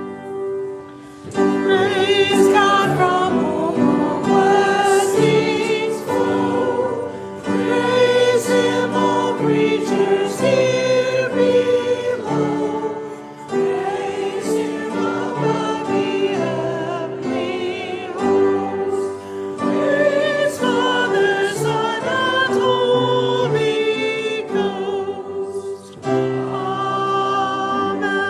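Sung offertory music: singing with vibrato over held accompaniment chords, in phrases separated by short breaks.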